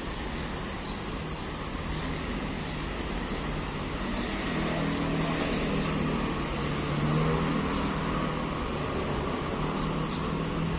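Street traffic: cars driving past with a steady engine and tyre hum that swells to its loudest about two-thirds of the way through.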